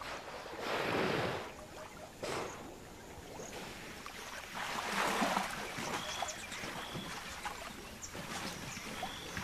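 Water sloshing and splashing as a hippopotamus moves in water thick with floating plants, in uneven bursts about a second in, briefly after two seconds, and again around five seconds. A few faint short high chirps sound in the second half.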